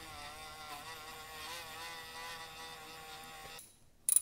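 Small cordless power driver whining steadily as it runs in a bolt to fix a fuel-line clamp to the engine, its pitch dipping slightly midway. It stops about three and a half seconds in, and a sharp metallic click follows near the end.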